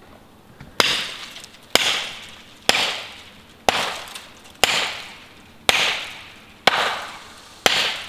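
Axe blows struck into a tree, eight of them about a second apart, each a sharp crack that fades over about half a second.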